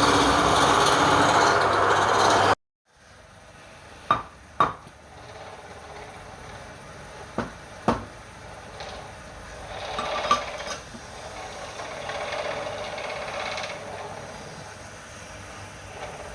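Woodturning: a tool scraping a piece of wood spinning on a lathe, loud and rasping, stops abruptly after about two and a half seconds. After a brief silence a quieter steady hum follows, with a few sharp knocks in pairs.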